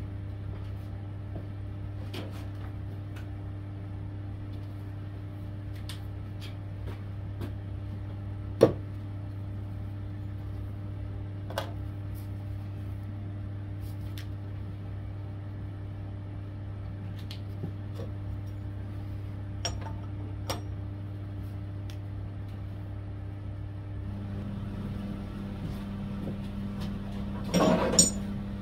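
Steady low machine hum with scattered light clicks and knocks. A second, higher hum joins about three-quarters of the way through, and a short louder clatter comes near the end.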